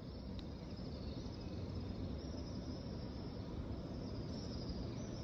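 Steady outdoor ambience: a low rumble with a faint high-pitched chirring over it.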